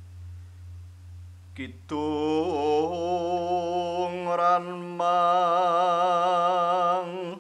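The low, slowly pulsing hum of a gong kemodhong dies away. About two seconds in, a solo voice begins an unaccompanied Javanese bawa, the sung vocal introduction to a gendhing. It holds long notes with a wavering vibrato and a bend in pitch, pauses briefly near the middle, and stops just before the end.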